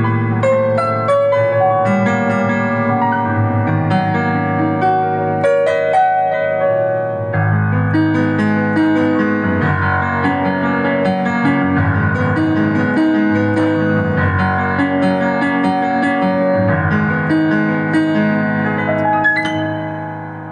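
Digital keyboard playing a sampled Yamaha CFX grand piano voice: a solo piano piece with a melody over held chords. The playing softens near the end as the notes die away.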